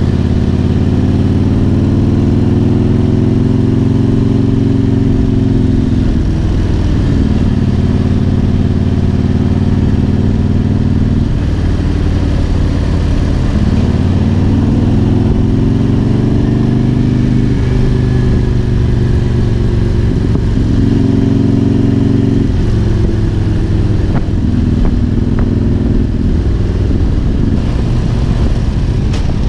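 2000 Harley-Davidson Road King's Twin Cam 88 V-twin engine running under way on the road. Its pitch rises under throttle and drops back several times, over a steady rush of wind noise.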